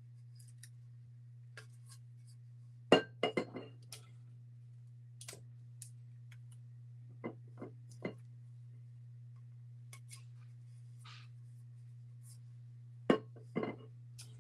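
Sharp clinks and knocks of a metal sublimation tumbler being handled and set against the work surface, in a few short clusters, the loudest about three seconds in and again near the end, over a steady low hum.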